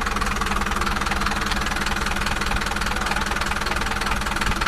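An engine running steadily at an even idle, with a fast, even chugging.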